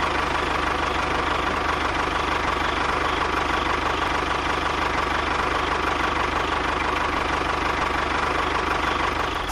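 A small motor running steadily at an even speed, with a fast, even rattle and a steady hum.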